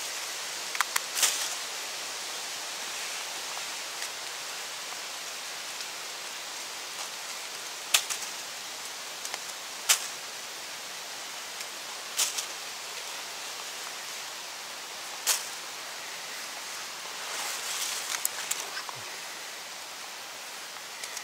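Close handling sounds of a mushroom being trimmed with a knife among dry fallen leaves: a few sharp clicks scattered through, and a short rustle near the end, over a steady outdoor hiss.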